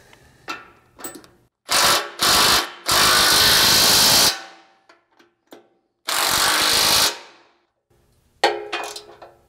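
Cordless 18-volt impact wrench driving bumper mounting bolts tight into the frame rail, in four bursts: two short ones, a longer one of about a second and a half, then one of about a second. Near the end, a few sharp metallic clinks of a hand tool on a bolt.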